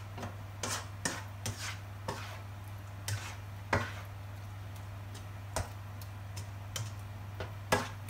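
A spatula scraping and knocking against a pan while stirring a thick mushroom-and-egg mixture: irregular clicks and scrapes, with two louder knocks, one about four seconds in and one near the end. A steady low hum runs underneath.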